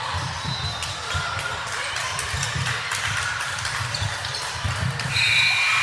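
Basketballs bouncing on a gym floor, a run of repeated low thumps with scattered sharp clicks and faint voices in a large hall. A steady high-pitched tone starts about five seconds in.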